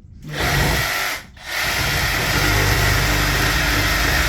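Small electric saw cutting through house wiring or conduit. It runs, stops briefly about a second in, then starts again and runs steadily.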